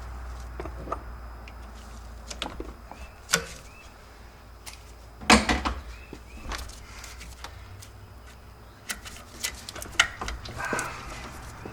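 Scattered clicks and knocks of hand tools and metal parts being handled while a water pump is taken off, with a few sharper knocks, the loudest about five seconds in, over a low steady hum.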